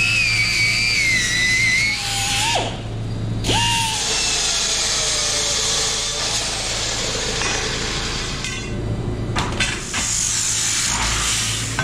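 Angle grinder cutting steel tubing, its whine sagging in pitch under load. After a short break, a metal-cutting chop saw spins up and cuts the tubing, its whine then slowly winding down. A few sharp metal knocks come near the end.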